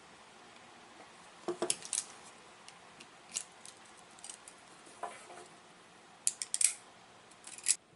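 Sharp metal clicks and clacks of a modular plug crimping tool being handled and squeezed, crimping an RJ45 plug onto a Cat 5 cable. Scattered single clicks come first, then the loudest clusters of clicks about six and a half seconds in and again just before the end.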